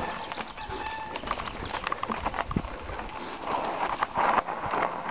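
Mountain bike clattering and rattling as it rolls fast over a rough dirt downhill trail, with a brief brake squeal in the first second that fades out. The rider takes such a brake noise as the sign of a burnt brake pad.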